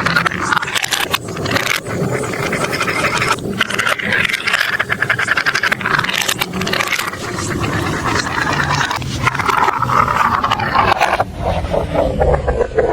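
Marbles rolling and clattering through a plastic marble run track. A continuous rolling rattle packed with small clicks.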